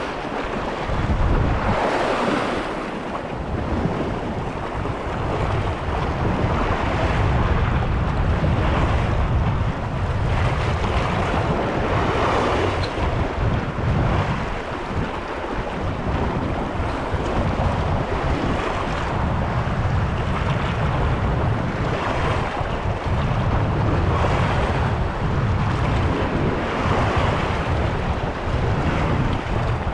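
Wind buffeting the microphone over choppy open sea, with waves rushing and sloshing in swells every few seconds.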